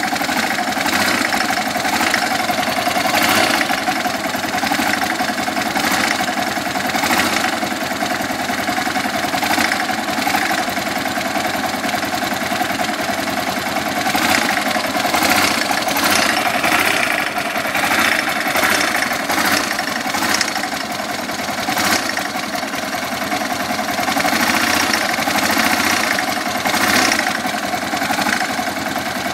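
Yamaha XT (43F) air-cooled single-cylinder motorcycle engine idling steadily at the cylinder head, with sharper ticks coming through now and then.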